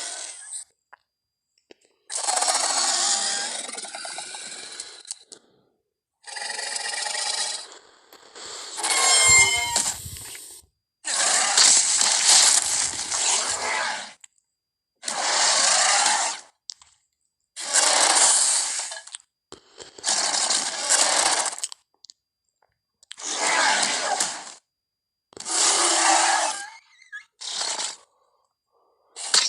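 Carnotaurus sound effects: a string of about eleven separate harsh, noisy dinosaur calls, each one to three seconds long with short silences between. One call around ten seconds in has a whistling edge over a deep rumble.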